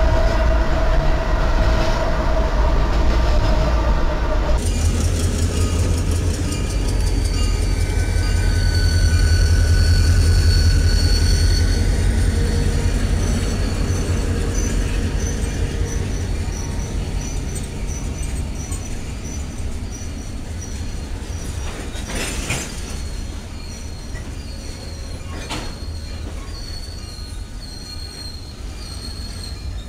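Norfolk Southern diesel freight locomotives passing with a steady drone. After a cut about four and a half seconds in, CSX diesel locomotives pull a freight train along street-running track with a deep engine rumble. A high wheel squeal runs over the rumble, two clanks come a few seconds apart in the second half, and the sound slowly fades.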